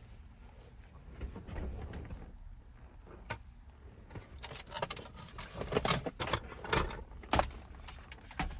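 Clicks and rattles of hard plastic dashboard trim parts and clips being handled, a quick cluster of sharp knocks in the second half.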